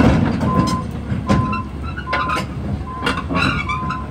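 Travel/reversing alarm on a new Sany 305 LC excavator beeping a single high tone about once every 0.8 seconds, over diesel engine rumble. Several sharp metallic clanks come in the middle.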